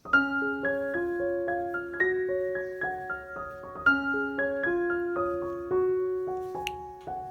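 Background piano music: a gentle phrase of single struck notes, each fading away, that starts over about four seconds in.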